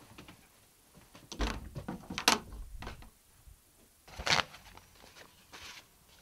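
Sheets of paper rustling and crackling as they are handled, in irregular bursts, loudest about two and four seconds in.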